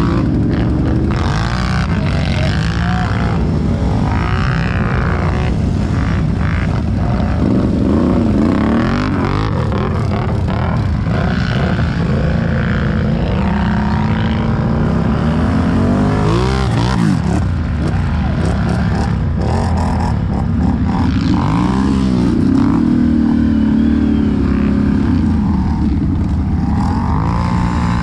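ATV engines revving, their pitch rising and falling again and again.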